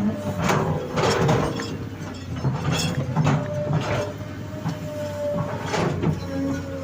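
Excavator working soil: the diesel engine runs steadily under a whining hydraulic tone that shifts in pitch, while the arm and bucket give about half a dozen sharp clanks and knocks.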